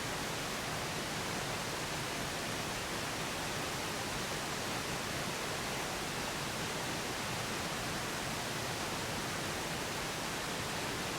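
Steady pink noise, an even hiss with no change in level, serving as the masking bed of a subliminal affirmation track.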